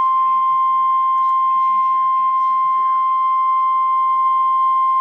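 NOAA Weather Radio's 1050 Hz warning alarm tone: a single loud, steady tone from a weather radio's speaker, the signal that a warning broadcast, here a severe thunderstorm warning, is about to follow.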